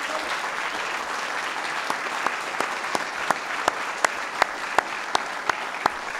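Audience applauding. From about two seconds in, one nearby person's claps stand out as sharp, evenly spaced claps at roughly three a second.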